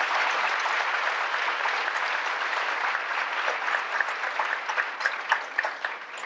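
Audience applauding, many hands clapping at once; the clapping thins out and dies away near the end.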